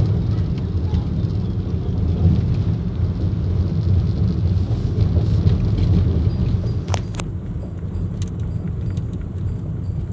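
Car driving on a paved road, heard from inside the cabin: a steady low rumble of engine and tyres, with a couple of sharp clicks about seven seconds in.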